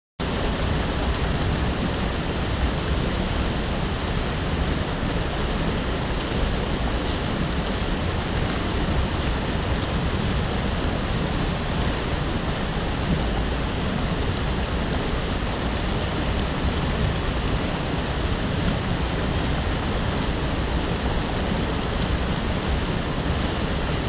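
Steady rush of water from a rocky mountain stream running over stones, with the waterfall that feeds it, a constant even hiss without breaks.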